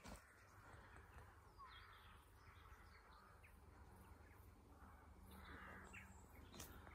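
Faint outdoor quiet with crows cawing in the distance, twice.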